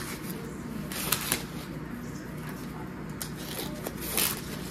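Fresh corn husks being pulled and handled on an ear of corn: a dry rustling and crackling, with a few sharper crackles about a second in and again near the end.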